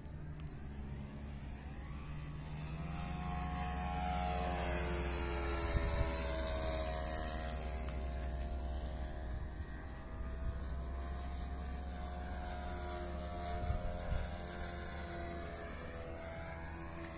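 Radio-controlled model plane's freshly overhauled O.S. Alpha 81 glow engine buzzing in flight, its pitch sliding down and back up as the plane passes and manoeuvres overhead.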